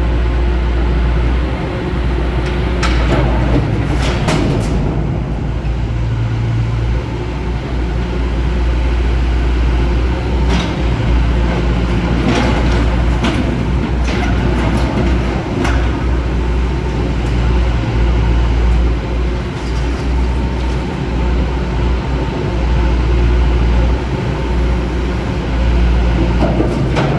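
Caterpillar 420 backhoe loader's diesel engine running steadily, with sharp knocks scattered through it, several between about ten and sixteen seconds in.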